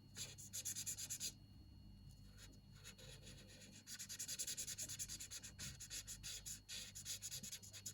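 Bullet-nib alcohol marker being stroked quickly back and forth across paper, many rapid strokes in two spells: about the first second and a half, and again from about four seconds in to near the end.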